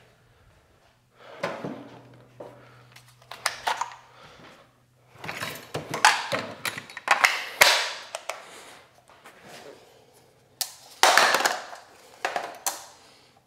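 Hard plastic cold air inlet duct being slid and worked into place by hand: irregular knocks, scrapes and rustles of plastic, heaviest around the middle and again near the end.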